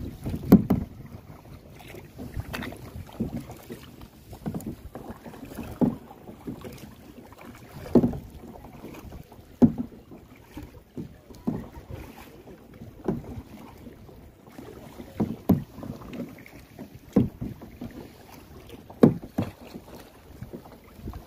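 Kayak paddle strokes in a steady rhythm: a short splash about every one and a half to two seconds.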